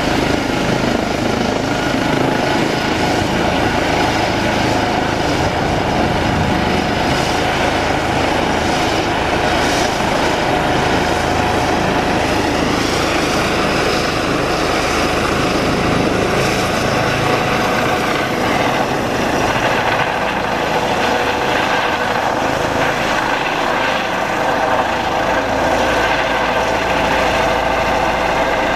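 Eurocopter EC135 twin-turbine helicopter running with its main rotor turning, then lifting off. Steady turbine whine and rotor noise, with the whine growing stronger in the second half as it takes off.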